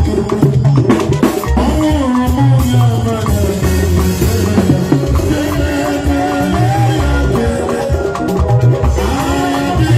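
Live band music with a drum kit played with sticks, snare and cymbal strikes keeping a steady beat, over low bass notes and higher melodic lines.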